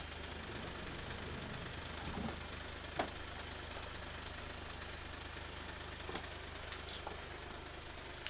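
Minivan engine idling steadily, with a few light knocks and clicks, the sharpest about three seconds in.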